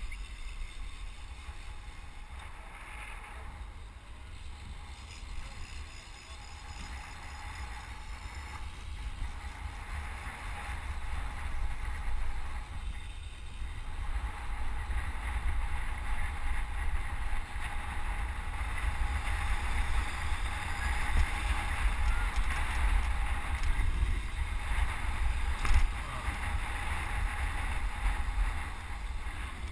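Wind buffeting a helmet-mounted action camera's microphone on a moving road bike, a steady rumbling rush that grows louder through the second half, with a brief knock near the end.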